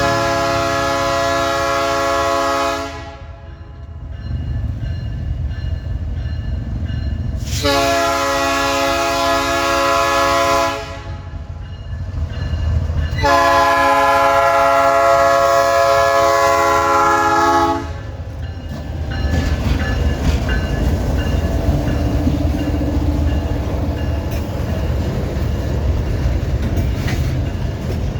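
Train horn sounding three long blasts, about three, three and four and a half seconds long, each a steady chord of several notes. The rumble and clatter of the train running on the rails follow.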